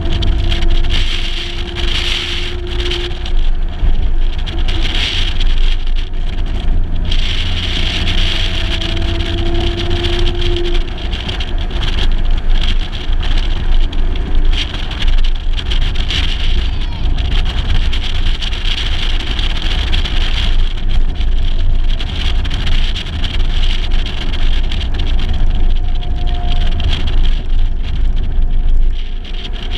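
Mercedes-Benz 300 SL (W198) straight-six engine driving the car along a road, heard through a GoPro mounted outside the body, with heavy wind rumble on the microphone. The engine note climbs a little a couple of times as the car picks up speed.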